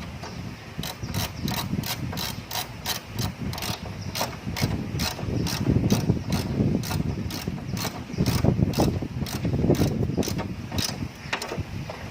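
Hand ratchet wrench clicking in a steady run of strokes, about three clicks a second, stopping near the end.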